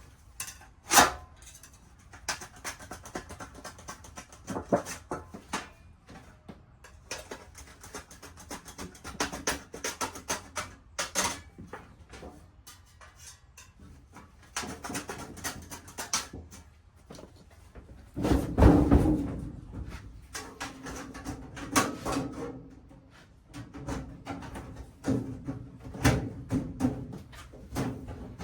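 Sheet-metal duct parts being handled and worked: irregular clanks, taps and scrapes as a supply plenum end cap is opened up and fitted on, with a heavier clatter about two thirds of the way through.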